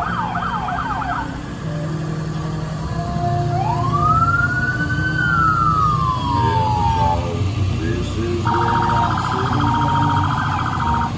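Emergency vehicle sirens sounding over a low engine rumble. First comes a quick yelp of rapid up-and-down sweeps, then one long wail that rises and falls back, and near the end a rapid pulsing tone.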